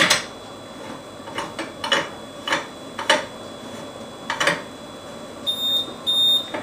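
Metal clinks and knocks as the malt pipe's top screen and crossbar are fixed in place inside the stainless steel Speidel Braumeister. Near the end come three short, high electronic beeps from the Braumeister's controller.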